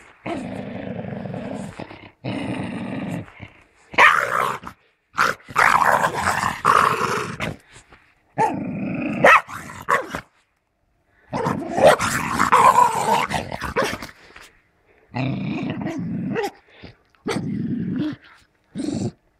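Small hunting dog growling in repeated bouts of a second or two with short pauses between, while it holds its catch in its mouth.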